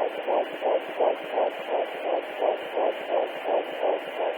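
A 12-week fetus's heartbeat picked up by a handheld fetal doppler and played through its speaker: quick, even beats, nearly three a second, over a steady hiss. That is about 165 beats a minute, within the normal range for this stage of pregnancy.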